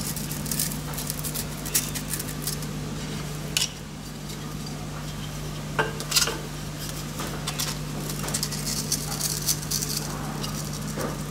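Hands handling a strip of P400 abrasive paper wrapped around a cast iron piston in a lathe chuck: rustling and crinkling of the paper with scattered light clicks and taps. Near the end a wooden clamp block is fitted around it, over a steady low hum.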